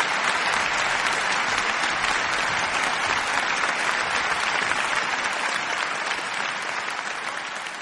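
Concert hall audience applauding steadily, the clapping fading out near the end.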